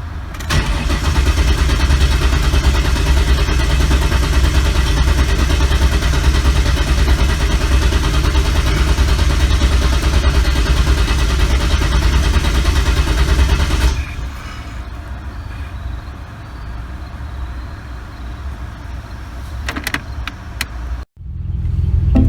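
Supercharged 4.0 L SOHC V6 of a second-generation Ford Explorer running steadily, loud for about fourteen seconds and then noticeably quieter. The engine has a slight misfire that started after a nitrous backfire.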